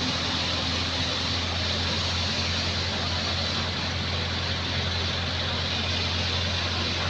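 An engine running steadily at constant speed: a low drone under an even hiss, with no changes.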